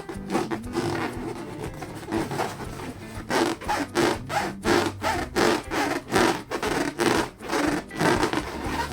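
Latex balloon being rubbed and squeezed by hand, making squeaky rubbing strokes that settle into a steady rhythm of about two to three a second a few seconds in.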